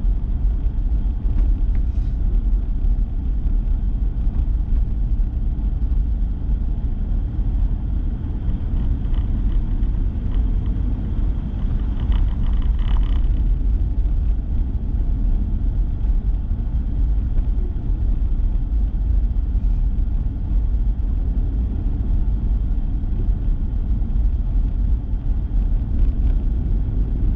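Steady low rumble of a pickup truck's engine and tyres heard from inside the cab, driving in four-wheel drive on snow-covered roads.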